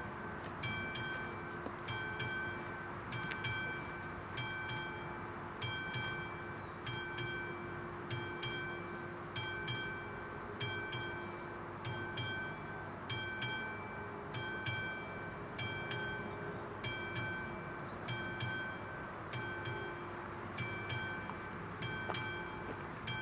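Czech level-crossing warning bell ringing over and over at a steady pace, about two strikes a second, each a bright ding with ringing overtones. It is the crossing's activated warning for an approaching train, sounding with the flashing AŽD 71 lights.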